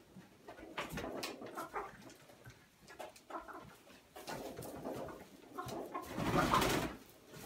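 Domestic chickens clucking low among themselves, with small scratching and pecking clicks. About six seconds in, a hen flaps her wings in a burst of under a second, the loudest sound here.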